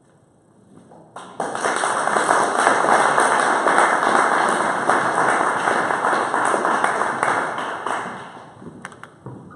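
Audience applauding, starting sharply about a second in and dying away near the end.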